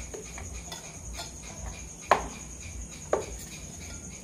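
Metal knife cutting through soft food on a stainless steel plate, the blade striking the plate with two sharp clinks about a second apart, each ringing briefly.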